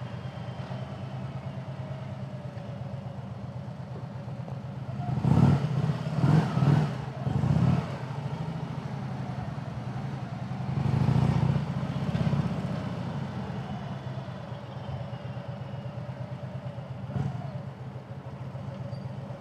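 Harley-Davidson touring motorcycle's V-twin engine running steadily at town-riding speed, its pitch falling and rising a little as speed changes. Several louder swells come about five to eight seconds in, and another around eleven seconds.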